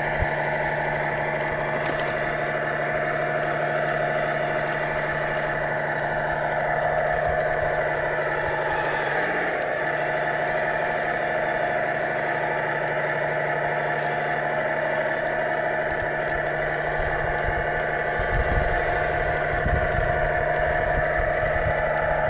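A radio-controlled model construction machine running: a steady machine whine and hum holding one pitch throughout, with a short dip about nine seconds in and some low rumbling near the end.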